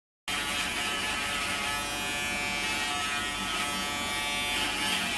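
Braun electric shaver running with a steady buzz, cutting in abruptly just after the start.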